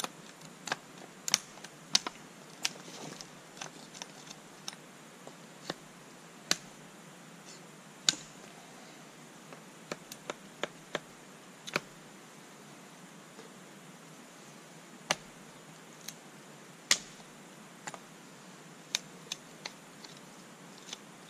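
Knife cutting into a wooden stick as it is carved: a series of sharp, short clicks at irregular intervals, with a lull of a few seconds after the middle.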